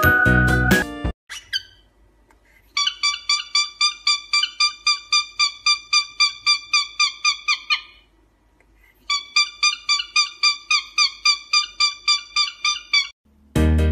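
A cockatiel giving fast runs of repeated chirping notes, about five a second, in two long bursts with a pause of about a second between them. The first second holds background music.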